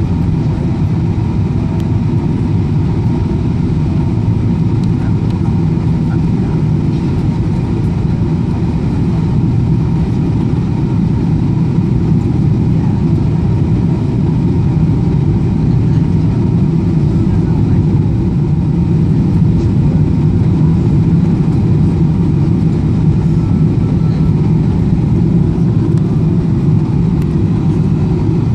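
Steady cabin roar inside a Boeing 777-300ER descending on approach: the GE90 engines and the airflow over the fuselage, heavy in the low end with a faint steady tone above it, growing slightly louder past the middle.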